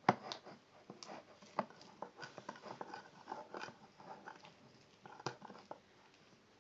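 Homemade glue-and-borax slime being squeezed and kneaded by hand, making irregular sticky clicks and pops, the sharpest right at the start and about five seconds in.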